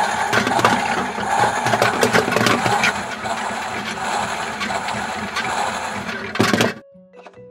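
Toy washing machine running its wash cycle: a small motor whirring with a busy, clicking rattle, cutting off about seven seconds in.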